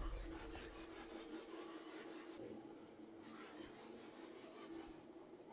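Faint crackling static from a spirit box sweeping through radio stations, over a steady faint hum.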